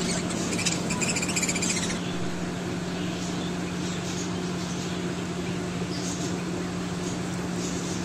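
Flock of budgerigars chattering and chirping for about the first two seconds, then dying away, over a steady low hum.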